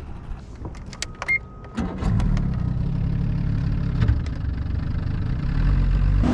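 Boat motor starting up about two seconds in and then running with a steady low hum, after a few sharp clicks.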